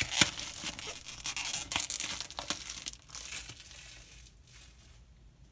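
Clear plastic shrink-wrap being peeled and torn off a cardboard card box, crackling and crinkling for about three seconds before dying away.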